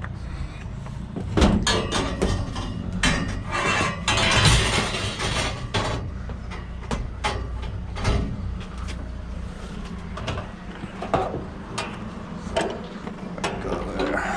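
Pieces of scrap metal clanking and knocking as they are handled and loaded into a van. The knocks come irregularly, with a busier, noisier stretch about four seconds in, over a low steady hum that fades out about two-thirds of the way through.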